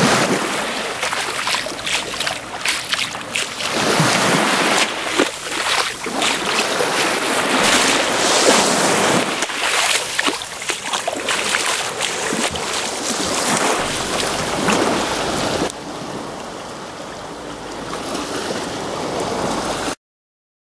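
A bare foot kicking and splashing in shallow sea water, in a rapid string of splashes. About 16 s in the splashing stops and only a softer, steady wash of water is left, which cuts off suddenly near the end.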